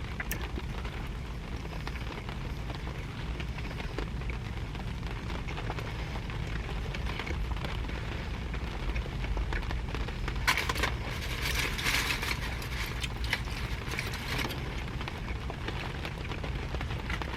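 Rain pattering steadily on a car's roof and windows, heard from inside the cabin with a low rumble underneath. Between about ten and fourteen seconds in, a denser run of fine crackles and clicks comes over it.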